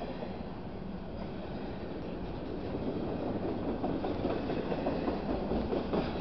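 CSX intermodal freight cars rolling past at close range: a steady rumble of steel wheels on rail, growing louder about halfway through, with clacks of the wheels over rail joints in the second half.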